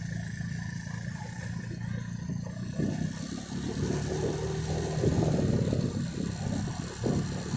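Motorcycle engine running on the move, with wind rumble on the microphone, growing louder about three seconds in.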